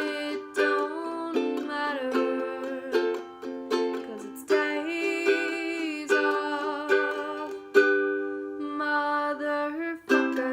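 Strummed chords on an acoustic string instrument, renewed by a stroke every half second or so, in a small room.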